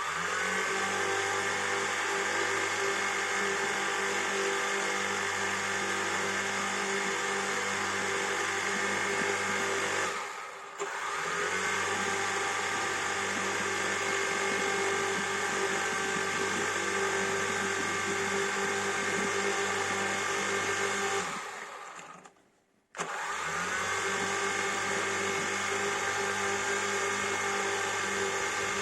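Quadcopter drone's motors and propellers whining steadily with several layered tones. The whine spins up with a quick rise in pitch at the start, dips and spins up again about ten seconds in, then fades out around twenty seconds in and spins back up a second or so later.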